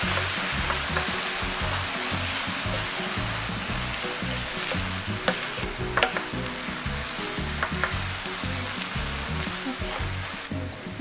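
Fish cakes, onion and perilla leaves sizzling in a frying pan on leftover heat with the burner off, stirred with a spatula. The sizzle fades slowly, with a few sharp clicks of the spatula against the pan around five to eight seconds in.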